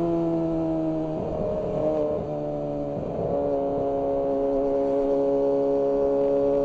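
Kawasaki ZX-25R's 250 cc inline-four engine under way. Its note falls slightly, shifts down in steps around one and three seconds in, then holds steady at a constant speed.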